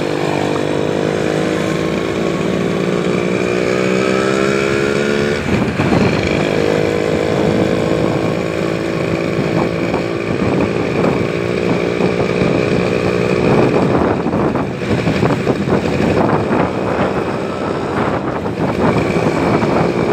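Motor vehicle engine running while under way, its pitch slowly rising as it speeds up, then dropping suddenly about five and a half seconds in as in a gear change before settling steady; the sound grows rougher and noisier in the last several seconds.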